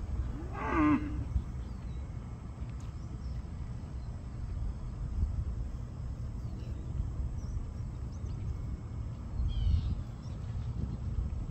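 A cow gives one short moo about a second in. A steady low rumble runs underneath, swelling briefly near the end, and a few faint bird chirps come and go.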